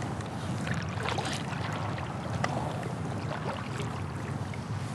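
Kayak paddle dipping in the water: short splashes and drips for a few seconds, over a steady low rumble.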